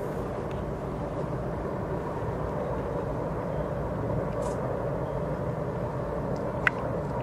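Steady low rumble of a vehicle running, with a single sharp click near the end.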